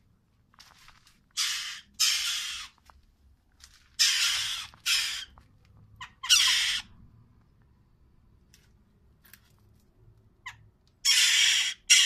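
Western jackdaw giving harsh, rasping squawks in loud bursts of about half a second each: five in the first seven seconds, then, after a pause, another pair near the end.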